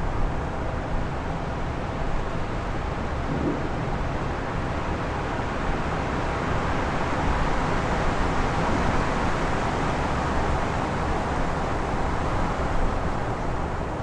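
Strong wind in a town: a steady rushing noise over a low rumble, swelling into a long gust through the middle and easing near the end.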